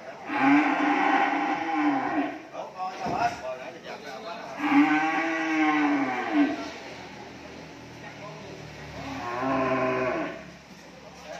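Cattle mooing: three long moos a few seconds apart, each rising and then falling in pitch.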